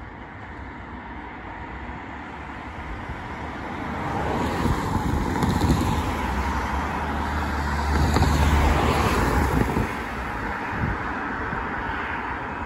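Road traffic passing close by: cars driving past, swelling to the loudest passes with a deep rumble in the middle and easing off towards the end.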